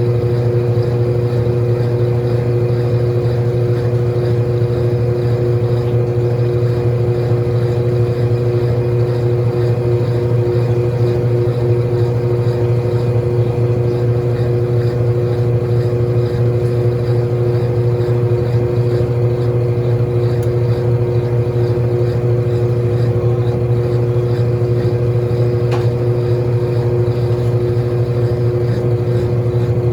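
Small washing machine running, its motor giving a loud, steady hum with two higher steady tones above it and no breaks or change.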